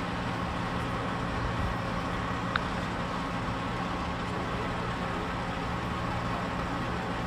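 Steady hum of an idling vehicle engine under street noise, unchanging throughout, with a single short click about two and a half seconds in.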